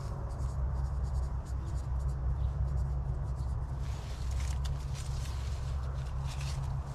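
Faint scratching and rustling of a marker writing on red plastic tagging tape and the tape being handled, with scattered soft clicks, over a steady low rumble.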